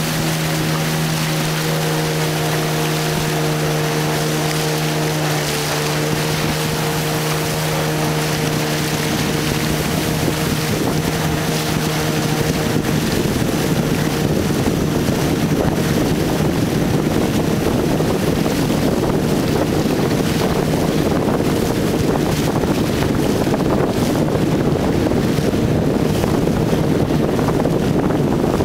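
Longboat's outboard motor running steadily under way, with the rush of river water and wind on the microphone. About halfway through, the steady hum breaks up into a rougher, noisier rush.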